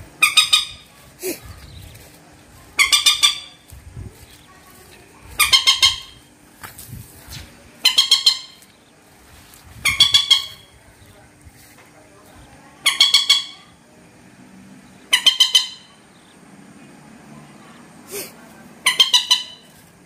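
Common moorhen (mandar) calling again and again: a short, quick run of clipped, high notes about every two and a half seconds, eight times over.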